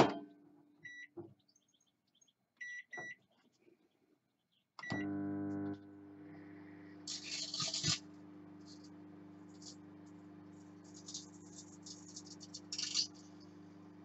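Microwave oven keypad beeping a few times, then the oven starting with a steady electrical hum. Over the hum a CD inside crackles and fizzes in bursts as its thin metal layer sparks, loudest near the end.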